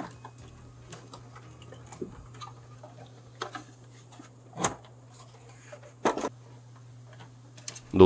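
Scattered light clicks and knocks of hands and screws on the opened PS4 Pro's metal shield and casing during reassembly, the two sharpest about halfway and a second and a half later, over a steady low hum.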